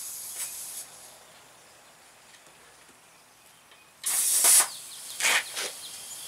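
Compressed air hissing at a truck tire's valve stem. A steady hiss stops about a second in; after a quiet spell come three short, loud bursts of air as the air chuck is pressed onto the valve.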